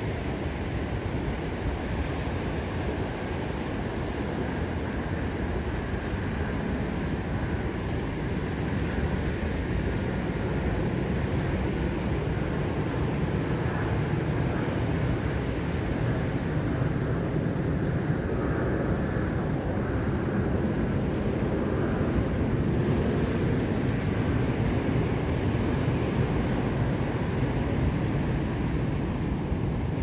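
Ocean surf breaking and washing ashore in a steady rush of noise, growing a little louder about halfway through.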